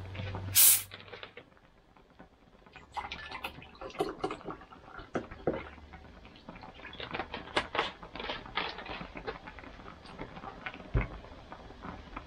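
Plastic cola bottle's cap twisted open, letting out a short sharp hiss of escaping gas about half a second in; then cola poured into a glass, fizzing and crackling. A thump near the end.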